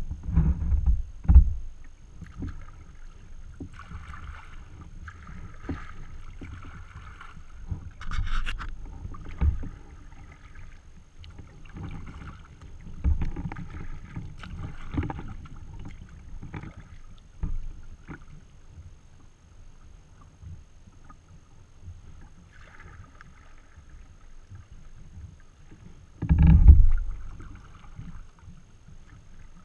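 Water lapping and paddle splashes from a sea kayak under way, with low rumbles of wind on the microphone, loudest about a second in and again near the end.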